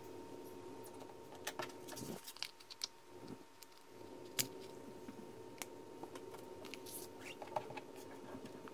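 Light scraping and scattered small clicks of a bare 9 mm Olfa 60° snap-off cutter blade half-cutting paint protection film on a cutting mat, then of the film being lifted and peeled at the cut, all faint over a low steady hum.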